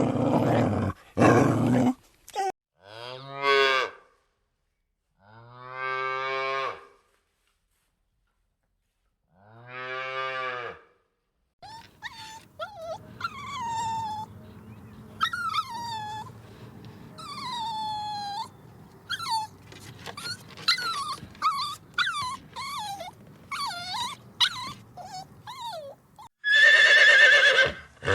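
Cattle mooing: three long, low calls a few seconds apart, after a couple of loud short bursts at the start. Then a run of many short, high calls that slide down in pitch over a steady background noise, and a loud horse whinny near the end.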